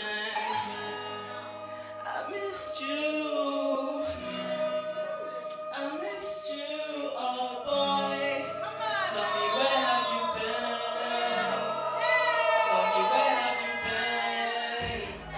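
Live male vocalist singing into a microphone over instrumental accompaniment, his voice sliding between notes in long held phrases.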